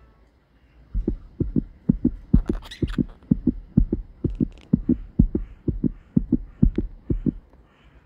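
Blue Quaker parrot (monk parakeet) pecking and chewing at the phone's screen protector right against the microphone, heard as a fast run of dull, deep thuds, about four a second, with a few sharper clicks. It starts about a second in and stops near the end.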